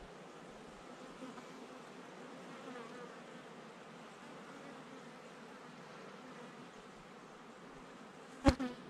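Honeybees flying around their hive, a steady faint buzzing hum. Near the end comes a brief loud knock with a buzz right at the microphone.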